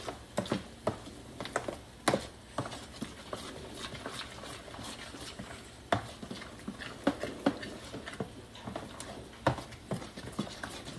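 Thick, wet mush of soaked puppy kibble being mixed in a plastic tub: irregular squishes and knocks against the tub, several a second.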